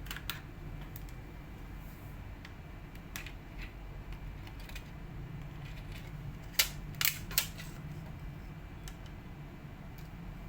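Scattered sharp clicks and taps from a laptop being taken apart by hand, with three louder clicks in quick succession about two-thirds of the way through, over a faint low hum.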